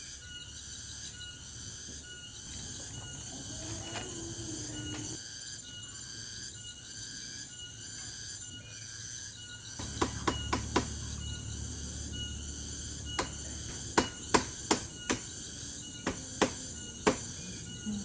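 Insects chirping in a steady pulsing rhythm. About ten seconds in come four sharp knocks in quick succession, then several more spaced over the following seconds.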